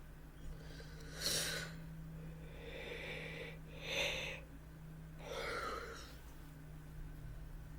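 A person breathing audibly: four separate noisy breaths, the loudest about a second in and about four seconds in.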